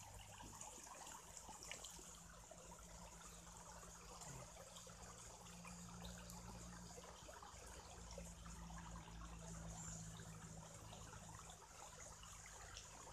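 Faint trickling of shallow running water around hands holding a crab, with a low steady hum underneath.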